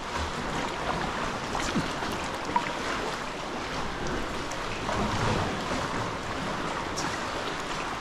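Steady wash and slosh of seawater around the camera, with a couple of small clicks partway through.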